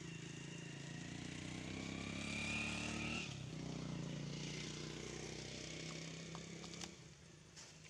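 A motor engine running steadily in the background, dropping away about seven seconds in, with a few faint clicks near the end.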